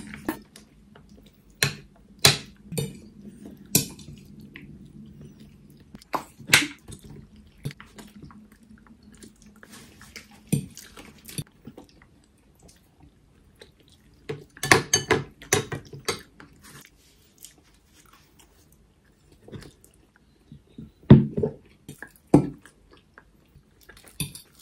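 Forks clinking and scraping on ceramic plates, with chewing. Scattered sharp clicks, a denser run of them a little past the middle and a few duller knocks near the end.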